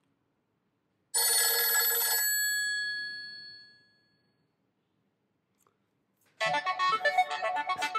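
Nokia 603 smartphone tones: a short bright chime about a second in rings out and fades over a couple of seconds. After a pause, a busy ringtone melody starts near the end.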